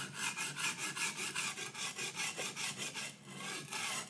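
Steel knife blade scraping back and forth on a whetstone in quick push-and-pull sharpening strokes, about five a second. The strokes falter briefly about three seconds in, then come back for one last stretch and stop suddenly.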